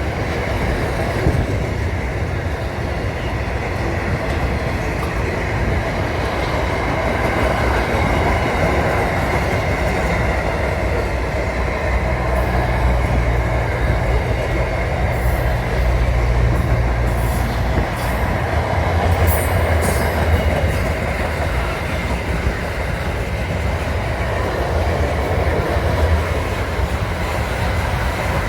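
A train running along the track: a steady rumble, with a cluster of sharp clicks from the wheels over rail joints a little past the middle.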